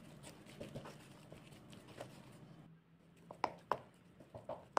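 Hand mixing wet, sticky potato focaccia dough in a stainless steel bowl: faint, soft squelching, with a few sharper clicks in the second half.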